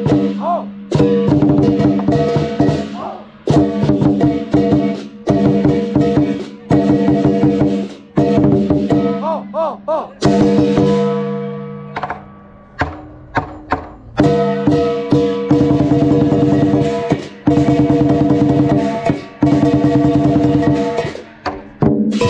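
Lion dance percussion: a drum, clashing cymbals and a gong playing together in loud, rapid phrases. About two-thirds of the way through, the hits thin out to a few single strikes before the full rhythm picks up again.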